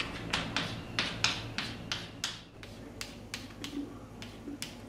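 A run of sharp, irregular clicks or taps, about two to three a second.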